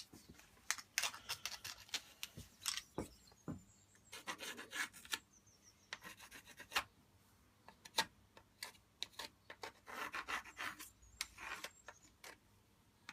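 Irregular light scrapes, rubs and small clicks of handling work on a bench, short and scattered with quiet gaps between them.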